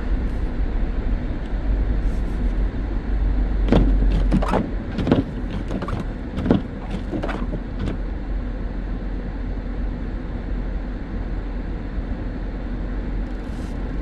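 Inside a Subaru car driving on a snowy road: steady engine and road rumble in the cabin, with a few short knocks and thumps a few seconds in.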